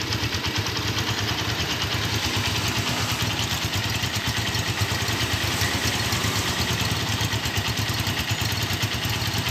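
Honda Tiger Revo motorcycle engine idling steadily through its stock exhaust, an even, unchanging run of rapid exhaust pulses.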